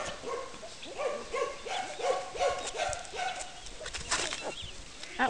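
Four-week-old puppy whimpering in a string of short, rising-and-falling cries, about two a second, with a sharper yelp near the end.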